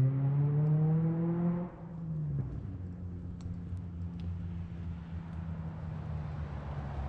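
Street traffic: a motor vehicle's engine accelerating with rising pitch, which cuts away and drops about two seconds in. A steadier, lower engine hum with road noise carries on after it.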